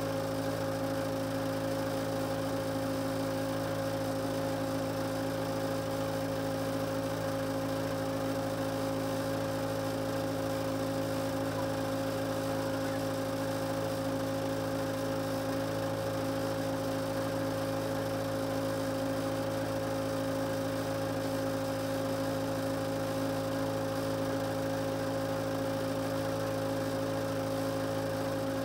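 Case 580C backhoe's engine running steadily at idle, heard from inside the cab: a constant, even hum with no change in speed.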